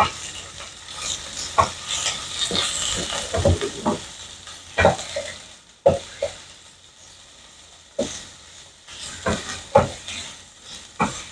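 Sliced ham and garlic frying in oil in a nonstick pan, sizzling most strongly in the first few seconds, while a wooden spatula stirs and turns the slices with repeated knocks and scrapes against the pan.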